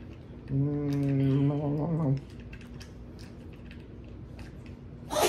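A woman humming one low 'mmm' held for about a second and a half, followed by faint ticks and rustles of a sauce packet being squeezed and handled. A brief, louder sound cuts in at the very end.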